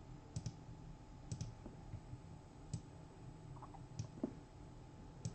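Faint, scattered clicks at a computer, several coming as quick double clicks, as a randomizer is set up.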